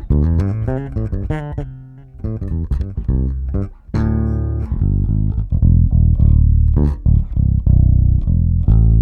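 Electric bass guitar played through an Ampeg SGT preamp pedal whose built-in optical compressor is set low, around 9 o'clock, for mild compression. A quick run of plucked notes comes first, then a held note about four seconds in, then a string of evenly repeated notes.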